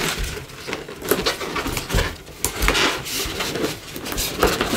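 Two inflated latex balloons being tied together by their necks: rubber rubbing against rubber and fingers in short, irregular scrapes.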